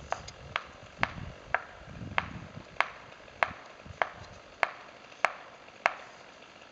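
A felling wedge being driven into a tree's cut with about eleven sharp, ringing blows at an even pace, a little under two a second.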